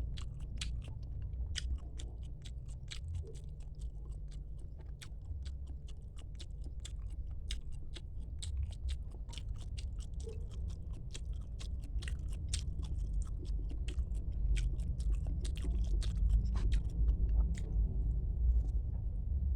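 A person chewing food close to the microphone: many small, irregular wet mouth clicks over a steady low rumble.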